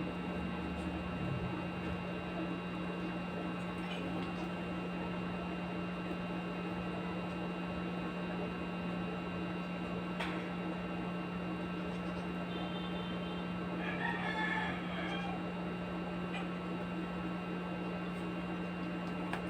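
A steady low hum with faint high whining tones, and a rooster crowing once in the background about two-thirds of the way through.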